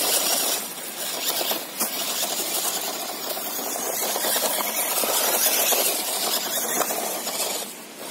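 Toy radio-controlled off-road truck driving fast over dirt and dry leaves: its small electric motor and gears whir while the tyres crackle through the leaf litter, the sound swelling and easing as it speeds up and turns.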